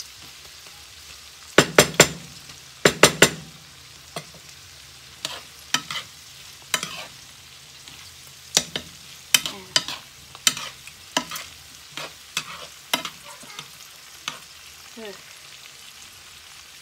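Green beans and ground pork frying in a nonstick pan with a faint steady sizzle, stirred and scraped by a wooden spatula and then a spoon, which click and knock against the pan many times. The loudest knocks come in two quick runs about two and three seconds in.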